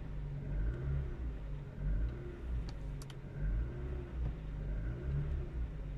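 Ford Focus mk2 1.6 petrol four-cylinder engine idling cold, just after a start following a night standing, with its sound swelling and easing about once a second. No clear regular ticking stands out.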